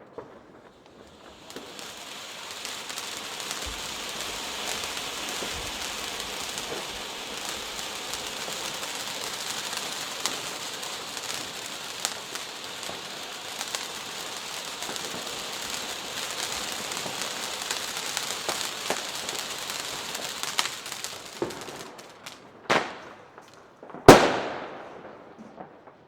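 A firework fire wall, a row of fountains burning with crackling gold effects: a steady hiss thick with crackling that builds about a second and a half in and dies down after about twenty seconds. Two sharp bangs near the end, the second the loudest.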